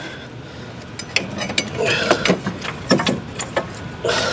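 Metal clinking and rattling as a brake caliper is lifted and hung up out of the way: a quick run of sharp clicks and knocks from about a second in, loudest near the end.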